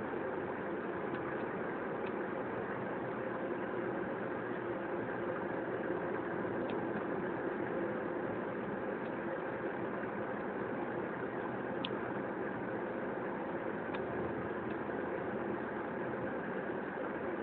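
Steady engine and road noise inside a moving 1991 Mitsubishi 3000GT SL with an automatic gearbox. Its 3.0-litre V6 runs with an intermittent misfire, which the owner says sends the tachometer needle jumping. A few faint clicks sound over the steady noise.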